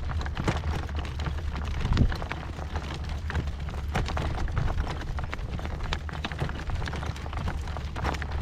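Strong wind buffeting the microphone with a steady low rumble, over the irregular hoofbeats of a horse pulling a light cart.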